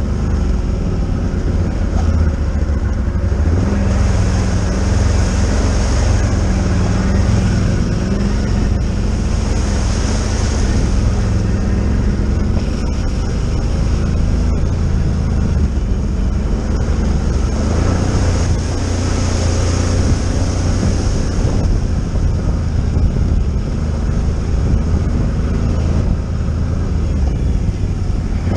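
Can-Am ATV's V-twin engine running steadily at trail speed, its pitch wavering slightly with the throttle, with a hiss that swells twice.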